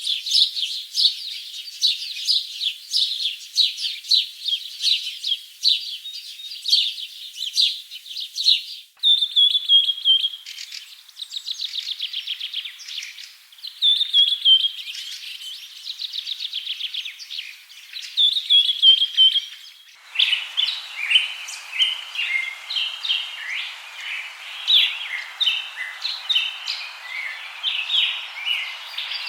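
Songbirds chirping and trilling, with repeated falling trilled phrases in the middle part. The birdsong changes abruptly twice, about nine and twenty seconds in, as if separate recordings were joined, and the last part sits over a steady background hiss.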